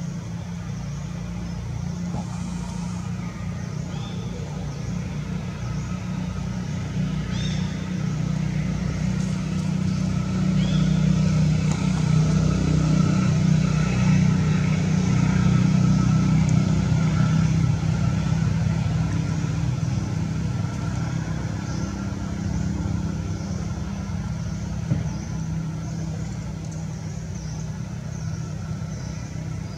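A motor vehicle's engine running steadily: a low hum that grows louder toward the middle and then eases off.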